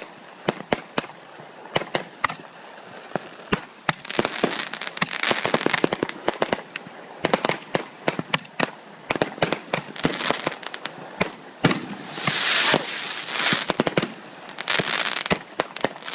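Fireworks and firecrackers going off: a rapid, irregular string of sharp bangs and pops, with spells of dense crackling about four seconds in and again near the end.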